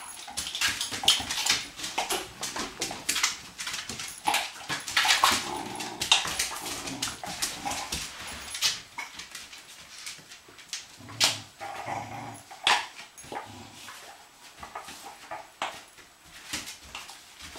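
Puppies playing rough on a tile floor: a busy patter of short clicks and scuffles from paws and a ball, with occasional whines and yips.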